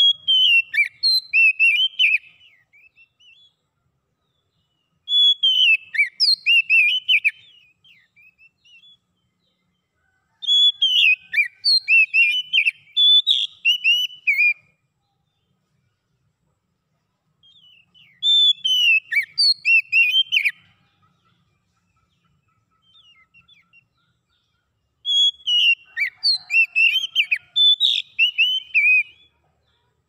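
Oriental magpie-robin singing: five phrases of clear, whistled notes with quick falling slurs, each phrase about three to four seconds long, separated by pauses of a couple of seconds.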